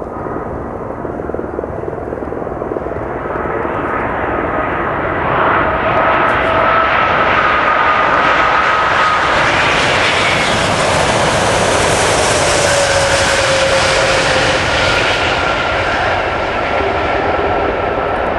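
Airbus A380's four turbofan engines on landing approach, a jet roar that swells over the first few seconds and stays loud. A whine rides on top and drops slightly in pitch as the airliner passes.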